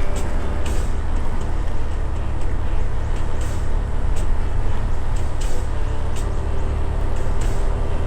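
Motorbike riding along at steady speed: a continuous rumble of wind over the microphone and the bike running underneath.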